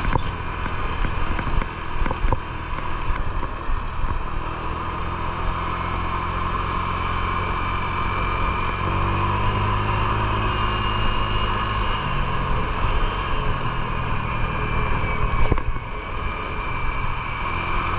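Honda scooter's engine running as it is ridden along a road, with wind noise on the microphone. The engine note steps up about halfway through and settles back down a few seconds later.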